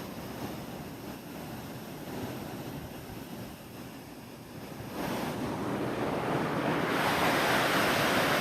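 Waterfall rushing, a steady noise of falling water with some wind on the microphone, growing louder about five seconds in and again near the end.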